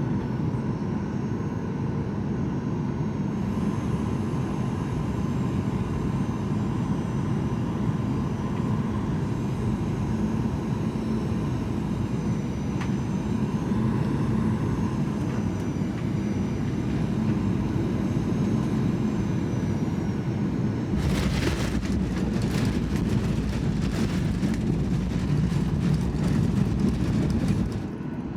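Steady cabin noise of a Boeing 737-800 airliner in flight, with a steady engine drone. In the last several seconds it turns louder and rattly, with many short knocks, the way it does at touchdown on the runway. It then drops off suddenly.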